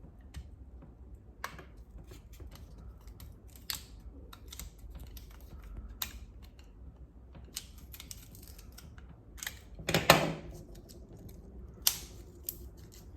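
Small irregular clicks and taps of plastic and metal as the first CR2025 coin cell is worked out of a Lincoln MKC remote key fob's case, with a louder cluster of clicks about ten seconds in.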